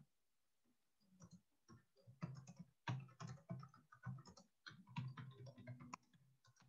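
Faint computer keyboard typing: a quick, irregular run of keystrokes that stops near the end.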